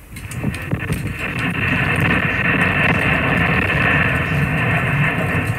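Stromboli volcano erupting: a loud, steady rushing noise of gas and ash jetting from the summit crater, building over about the first second and then holding. Scattered sharp ticks of falling debris hitting the camera.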